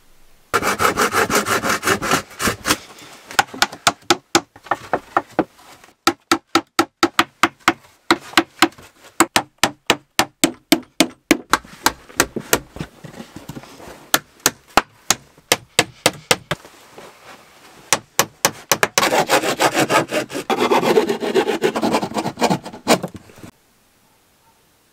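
Hand saw cutting wooden boards: runs of quick back-and-forth strokes with short pauses between, stopping shortly before the end.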